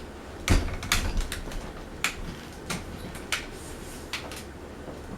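A Fasco Gulf Stream ceiling fan being switched off: a loud click with a low thump about half a second in. A string of lighter, irregular clicks follows over the next few seconds as the fan runs down.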